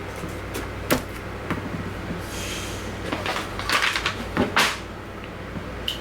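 Hands handling a tablet computer: a few sharp clicks and short rustling, scraping bursts over a steady low hum.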